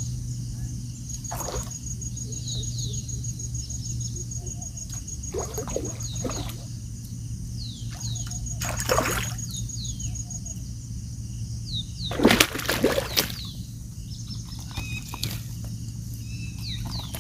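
Water splashing in several short bursts, the loudest about twelve seconds in: a hooked rohu carp thrashing at the surface as it is brought in.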